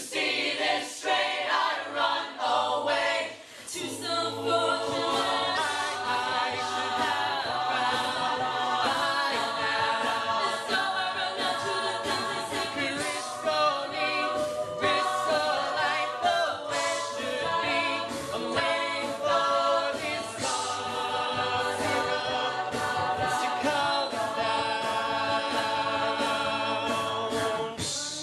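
A cappella vocal group singing a song in several-part harmony, with sharp percussive hits throughout.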